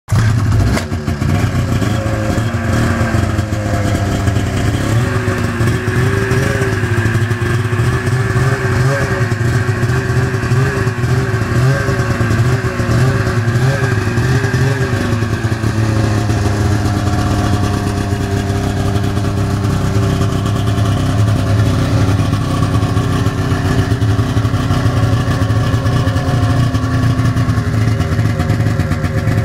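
1998 Ski-Doo MX Z 500 snowmobile's two-stroke twin-cylinder engine running just after start-up. Its pitch wavers unevenly until about halfway through, then holds steadier.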